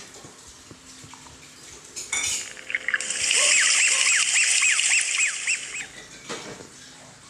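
Ident sound effects for a yellow toy '2' in bath foam: a quick run of about eight high squeaks, each rising and falling, over a loud fizzing hiss of foam. The sound builds about two seconds in and dies away about six seconds in.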